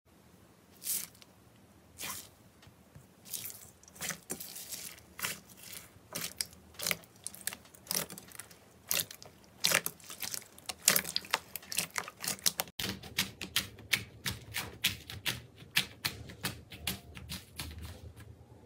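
Crunchy slime being pressed and worked by hand, giving sharp crackling clicks, a few at a time at first and then faster and denser.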